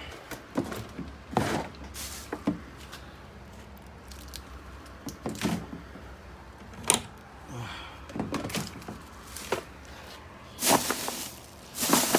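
Small electrical parts and hardware being handled and set down: scattered knocks, clicks and light rattles, with a brief rustling noise near the end.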